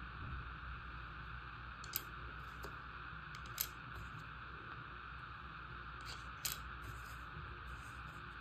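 Scrabble tiles clicking as they are set one at a time onto a tile rack: a handful of short, sharp clicks spaced a second or more apart, over a faint steady hiss.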